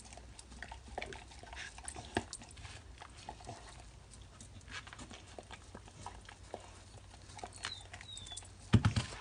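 Dog lapping water from a bowl: a run of small, irregular wet clicks and splashes. A louder knock comes near the end.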